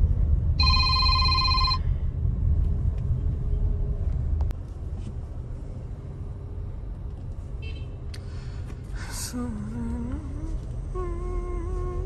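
Low rumble of a car's engine and tyres heard from inside the cabin while driving, louder for the first few seconds and then quieter. About half a second in, a single steady electronic ringing tone lasts a little over a second. Near the end a wavering pitched tone like humming or music comes in.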